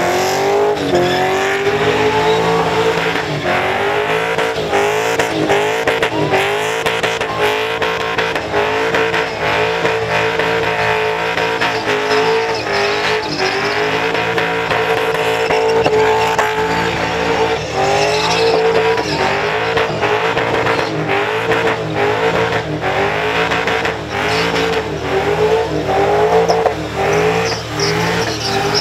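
Supercharged Holden Commodore doing a burnout: the engine is held at high revs with its note wavering up and down and frequent brief cuts, over the hiss of the spinning rear tyres.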